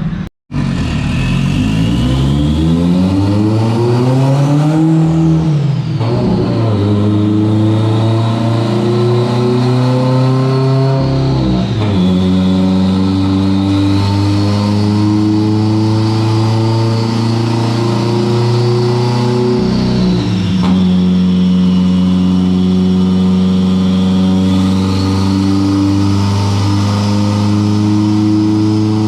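Subaru STI's turbocharged flat-four engine running under load: the revs climb for a few seconds, then drop sharply three times, holding fairly steady in between.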